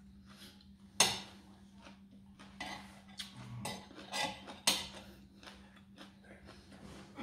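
Metal spoon and fork clinking and scraping against a ceramic plate, with the two loudest sharp clinks about a second in and just before five seconds in.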